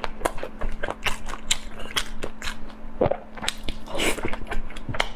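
Close-miked eating: a person chewing and biting food, with many quick, irregular wet mouth clicks.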